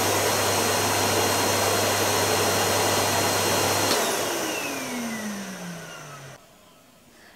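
Numatic Hetty bagged cylinder vacuum cleaner running at full power, with a steady high whine over a low hum. About four seconds in it is switched off, and the motor winds down with falling pitch for a couple of seconds before going quiet.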